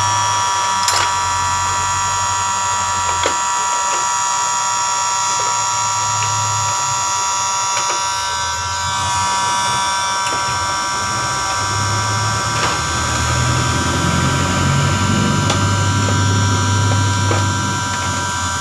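Electric heat gun running steadily, a constant whine of its fan motor with rushing air, heating a motorcycle headlight housing to soften the adhesive that holds the cracked lens. A few faint taps from handling the headlight.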